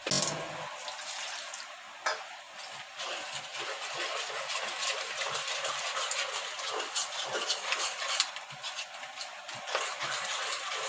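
Gram-flour and yogurt batter for kadhi being stirred in a metal pot. It makes a continuous wet swishing, with frequent scrapes and clicks against the pot's sides and a sharper knock about two seconds in.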